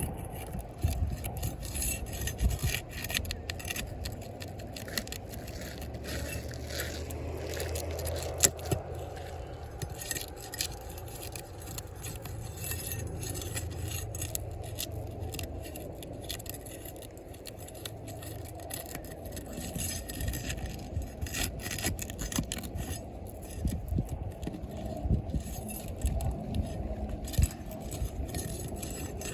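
Scraping and irregular metallic clicks of hand tools working asphalt roof shingles loose, with a low rumble underneath.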